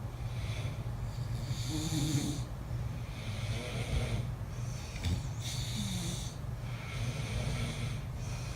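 Two men snoring at once: a steady low, rattling snore with breathy rasps every one to two seconds.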